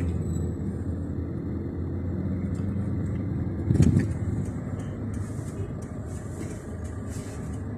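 Steady interior rumble of a Toyota car's engine and tyres while driving slowly in town traffic, heard from inside the cabin. A brief thump about four seconds in.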